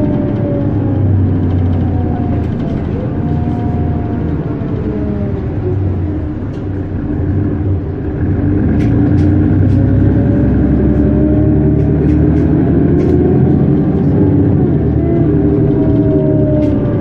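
Mercedes-Benz Citaro G articulated bus accelerating at full throttle on kickdown, its diesel engine and ZF Ecomat 6HP 502C automatic gearbox whining in pitch that drops with a gear change about six seconds in and then climbs again.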